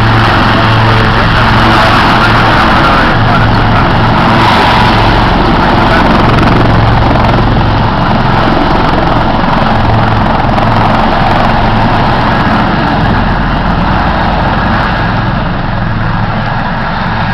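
Royal Navy Westland Lynx display helicopters running close by, a loud steady rush of turbine and rotor noise with a low hum, easing slightly as they depart near the end.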